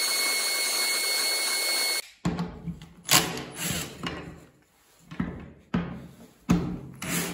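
CNC trim-router spindle running steadily with a high whine while its V-bit engraves letters into plywood, cutting off abruptly about two seconds in. Then a Bosch cordless drill/driver runs in a series of short bursts, driving screws into a wooden clamp strip.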